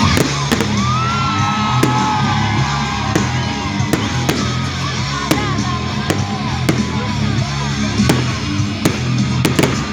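Fireworks going off: a dozen or so sharp bangs at irregular moments, with short whistling glides rising and falling between them, over loud music with a steady beat.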